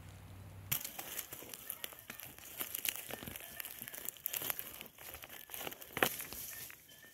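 Dry leaf litter, twigs and soil crackling and crunching as a hand digs out and pulls up a porcini mushroom. A faint low hum cuts off under a second in, and dense irregular crackles follow.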